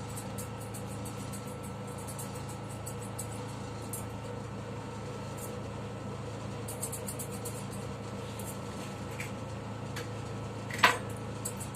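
Electric pet hair clipper running steadily, with fine ticking as the blade cuts through fur, and one sharp knock about a second before the end.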